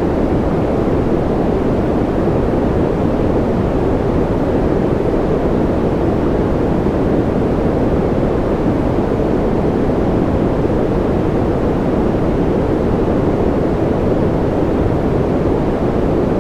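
Steady, unchanging white noise: an even, deep rushing sound with little high hiss and no breaks.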